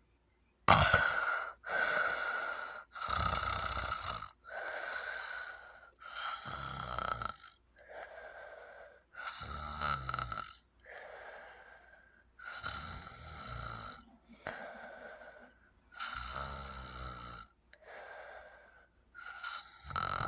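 Loud snoring: a run of harsh breaths about every second and a half, starting about a second in, some with a low rattling flutter. The uploader puts it down to sleep apnea.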